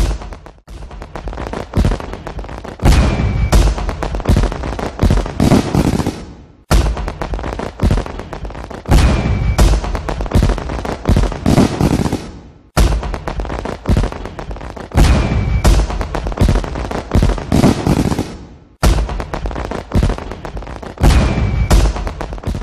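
Fireworks bangs and crackling in a looped passage that repeats about every six seconds, with a brief break between passes. Each pass carries a short whistle a couple of seconds in.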